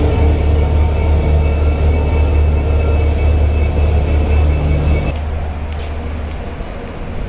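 Indian Railways diesel locomotive running close by as it moves slowly along the platform: a loud, steady low engine drone with a faint high whine. It cuts off about five seconds in, leaving quieter platform background.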